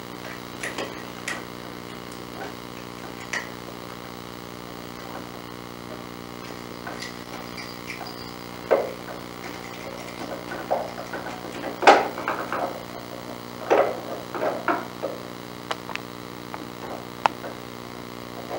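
Ring-necked parakeet rummaging in a small wooden drawer, its beak and feet knocking and scraping the wood and rattling things inside. The result is scattered clicks and knocks, sparse at first and busier in the second half.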